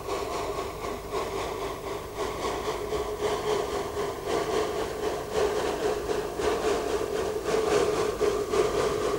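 Narrow-gauge steam locomotive working, its exhaust chuffing in an even beat of about three a second, growing louder near the end as it draws closer.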